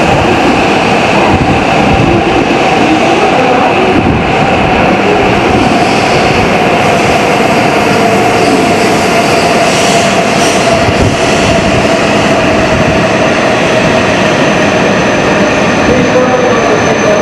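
E7 series Shinkansen train pulling into the station along the platform and slowing: a loud steady rush and rumble of the passing cars, with a whine that falls slowly in pitch as it brakes. A thin high tone comes in near the end.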